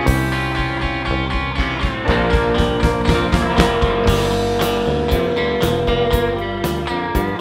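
Live rock band playing an instrumental passage: electric guitars over drums, bass and organ-style keyboard, with steady drum hits. A lead note is held for about four seconds from about two seconds in.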